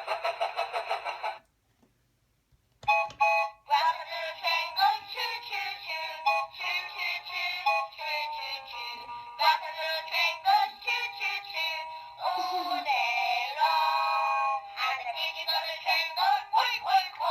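Tinny electronic music with synthesized singing from the Peppa Pig Grandpa Pig's Train toy's small built-in speaker. A fast repeating jingle cuts off about a second and a half in, and after a short silence a new tune starts and plays on.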